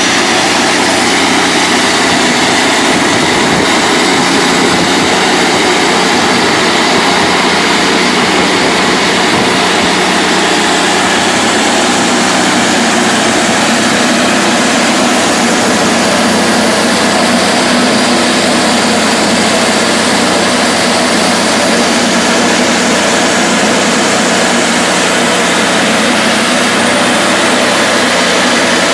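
Hud-Son Oscar 52 portable bandsaw mill running steadily as its band blade cuts through an oak log: a loud, even engine drone with the sawing noise over it.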